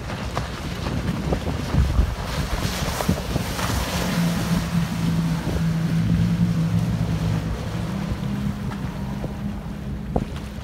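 Twin Yamaha 70 hp outboard motors running at speed as the workboat passes and turns, a steady engine drone that sets in about four seconds in and rises slightly in pitch later. Heavy wind buffets the microphone throughout, with a hiss of spray and wash from the boat's wake.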